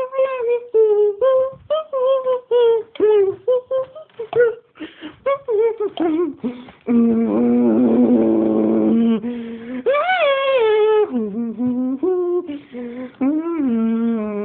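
Husky puppy vocalizing: a quick run of short whines and yips, then a longer held note, then drawn-out rising-and-falling howls.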